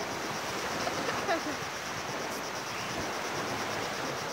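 Small waves breaking on a sandy beach with wind on the microphone, under a steady high pulsing insect trill.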